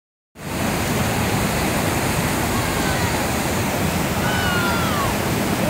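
Whitewater rapids rushing steadily over boulders, a loud continuous sound of churning water that starts just after the beginning.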